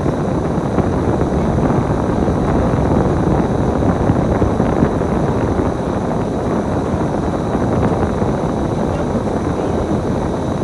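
KMB bus running, a steady engine and road noise.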